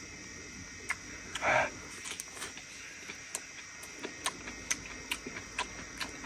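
Irregular sharp clicks and light taps, a few each second, with one short louder rustling or scraping burst about one and a half seconds in.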